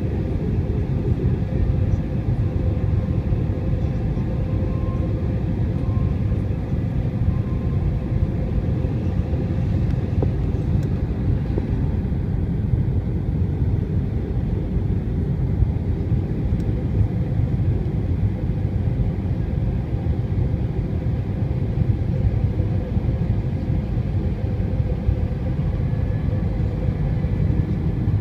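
Steady low rumble of an Airbus A320's engines and rushing air, heard inside the passenger cabin during the descent, with a faint steady hum above it.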